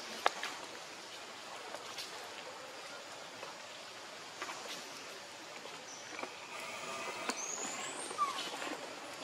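Outdoor background hiss with a few light clicks. In the last few seconds come several high, chirping animal calls, including a short falling call near the end.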